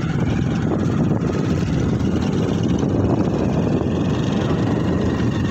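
Steady low rumble of a motorcycle riding along, with wind rushing over the phone's microphone held out on a selfie stick.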